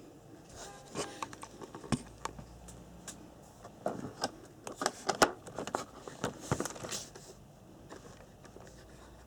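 Hands handling packaging and parts: irregular rustling, scraping and sharp clicks, busiest and loudest about four to seven seconds in.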